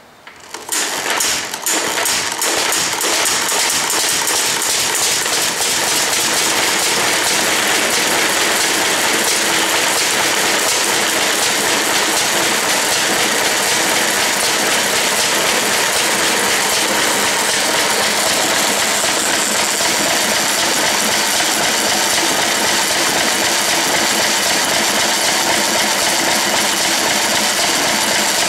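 A 1920s International Harvester McCormick-Deering 1.5 hp Model M throttle-governed engine catches after its flywheels are spun by hand and settles within about two seconds into a steady run, with a loud, fast mechanical clatter.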